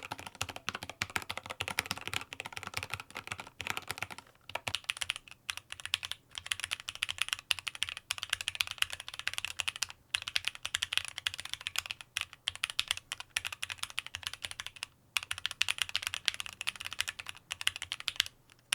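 Keychron Q8 aluminium mechanical keyboard being typed on quickly and continuously: a dense run of keystrokes, broken by a few brief pauses.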